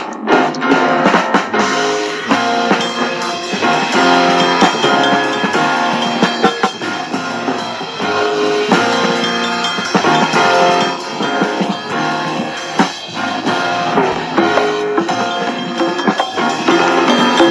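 Music with guitar and a drum beat.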